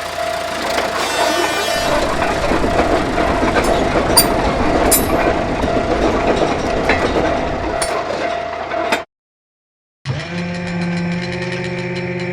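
Cartoon train sound effect: a train runs through a level crossing with a dense rushing rumble and scattered clacks over a steady warning tone. About nine seconds in it cuts off, and after a second of silence a steady horn-like chord with fast ticking sounds.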